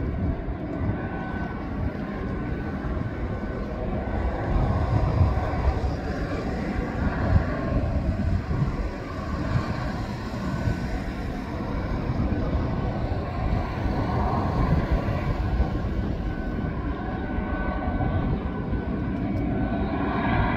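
Aircraft noise on an airport apron: a steady high whine from parked airliners, over a rough, uneven low rumble.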